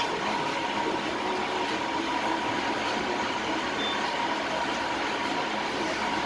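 Glass-bottom boat's engine running steadily under way, a constant drone with a thin, steady whine over it.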